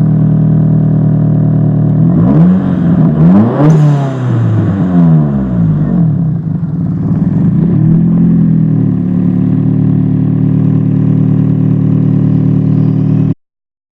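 Nissan SR20DET turbocharged four-cylinder engine idling, then revved in a few quick blips and once more a little later, dropping back to a steady idle each time.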